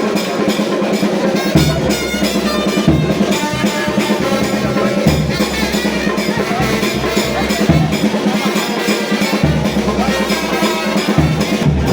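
Music with a drum-kit beat and a bass line.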